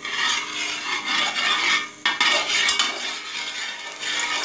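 Metal ladle stirring and scraping around the bottom of a steel cooking pot with a little oil in it, a continuous scratchy rasp that breaks off briefly about two seconds in.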